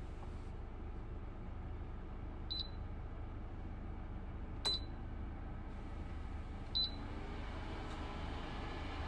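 Three short, high electronic beeps about two seconds apart from a Dreo portable space heater's controls as buttons are pressed, the middle one with a click. A steady low hum runs under them.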